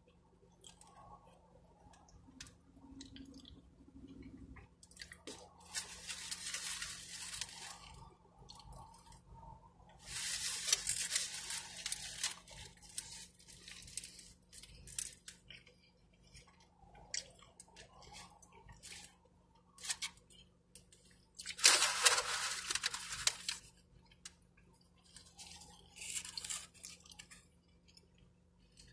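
Eating sounds: a burrito being chewed and handled, with its foil and paper wrapper rustling. The sounds come in several separate bursts, the loudest a little past the middle.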